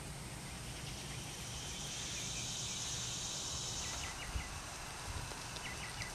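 Outdoor summer insect drone: a steady high hum with a louder buzz that swells up and fades in the middle. A few short chirps come near the end, over a low rumble.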